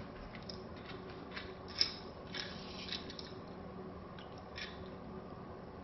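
Light handling noise: several short, faint clicks and rustles spread over a few seconds, over a quiet steady low hum.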